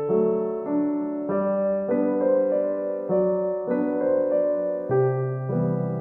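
Gentle solo piano background music, chords and notes changing about every half second to second.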